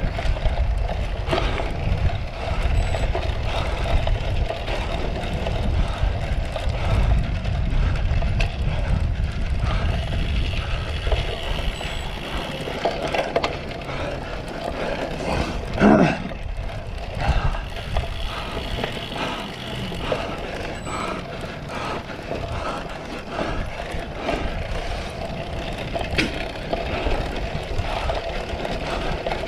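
Cyclocross bike being raced over rough ground: steady wind rumble on the microphone, with the bike rattling and clicking over bumps. There is a heavier thump about halfway through.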